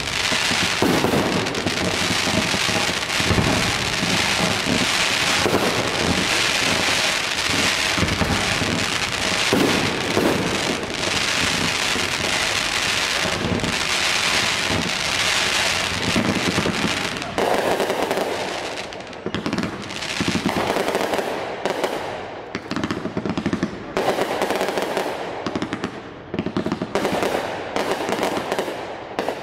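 Fireworks display: a dense, continuous hissing and crackling of fountains and shells with many bangs packed together, then, from about two-thirds of the way in, separate shell bursts a second or two apart.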